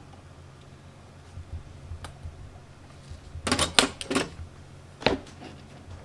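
Soldering iron set down in its metal stand on a metal tray: a quick cluster of sharp metallic clicks and clatter about three and a half seconds in, then a single knock a second later, over a steady low hum.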